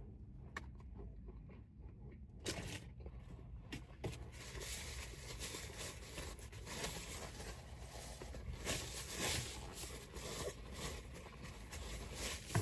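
Close-miked eating sounds of a cheeseburger being handled and eaten: a few soft clicks, then from about two and a half seconds in a steady run of crackly, papery bites and chewing noises.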